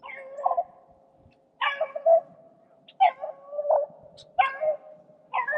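Beagle baying: five drawn-out, pitched calls about a second and a half apart.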